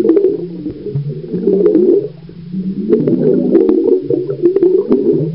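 Muffled underwater bubbling and gurgling as a swimmer exhales air through the mouth to blow bubble rings, picked up underwater, with a low drone beneath it and scattered clicks. It dips about two seconds in and picks up again a second later.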